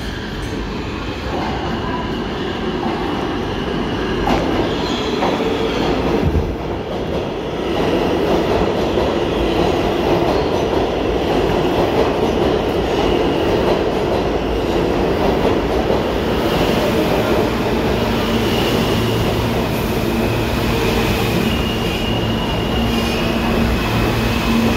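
An R160-series New York City Subway train pulls into an underground station, its wheels giving a continuous loud rumble on the rails. From about halfway in, high squeals come in as it slows along the platform, and a steady low hum from the propulsion sets in over the last few seconds.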